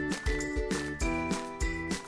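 Background music with a steady beat of about two beats a second under sustained melodic notes.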